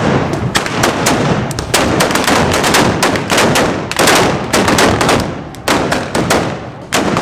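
Black-powder muskets firing blank charges in a ragged barrage: many shots overlapping, several a second, thinning briefly near the end.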